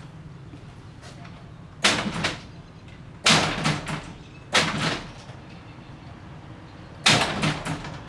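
Overhead garage door hardware rattling and clanking in four short bursts, about two, three and a quarter, four and a half and seven seconds in.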